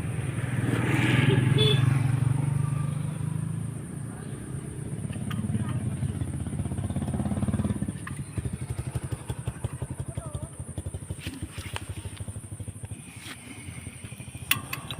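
Portable outdoor gas stove burner running with a loud low rumble. About eight seconds in, the flame turns into a rapid, even putter, the kind of popping that gives the stove its 'exploding' name.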